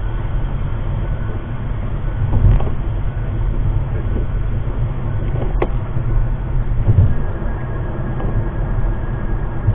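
Steady road and engine rumble inside a car's cabin at highway speed. One sharp click comes about five and a half seconds in.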